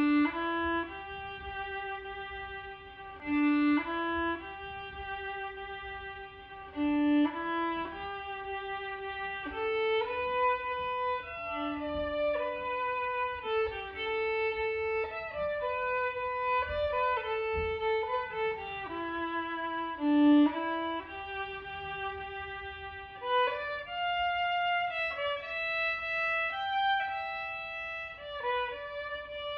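Violin playing a slow melody, note by note, with some notes held and a few swelling louder.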